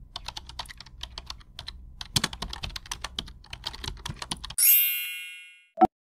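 Computer keyboard typing sound effect: a quick run of key clicks for about four and a half seconds as the name is spelled out, then a bright chime that fades over about a second, and one sharp click near the end.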